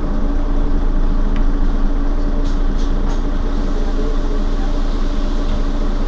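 Mercedes-Benz Citaro facelift city bus engine idling steadily while the bus stands still, with a few faint clicks about halfway through.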